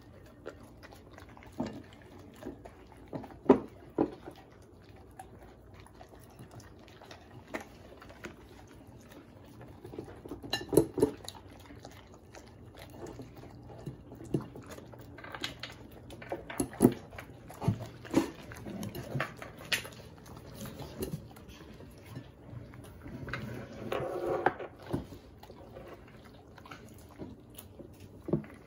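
Two dogs eating salad of shredded lettuce, boiled egg and radish off plates: irregular crunching, chewing and licking, with sharp louder crunches now and then.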